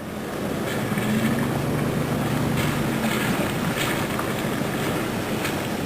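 Storm-swollen creek water rushing steadily, with a faint low hum for a couple of seconds in the first half.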